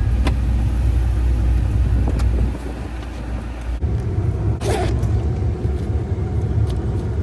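Steady low rumble of a car heard from inside the cabin, engine and road noise, easing for about a second midway. A few sharp clicks near the start and a short rustle about four and a half seconds in.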